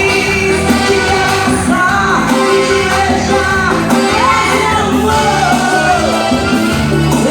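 Band music with a woman singing the melody over a steady beat, loud and unbroken.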